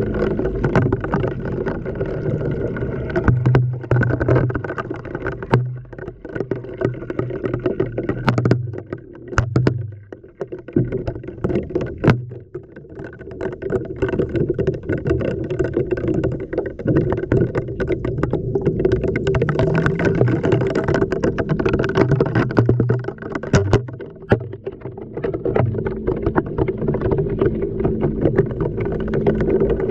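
LG washing machine heard from inside the drum during a wash: a steady motor hum with water sloshing, and sharp knocks and clicks as the tumbling camera and glow sticks hit the drum. The sound dips briefly a few times, around a quarter, a third and four-fifths of the way through.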